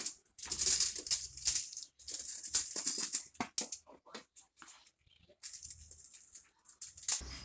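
Aluminium foil crinkling and cut potato chips rattling and scraping on a foil-lined baking tray as hands smooth the foil and spread the chips out, in several short rustling bursts.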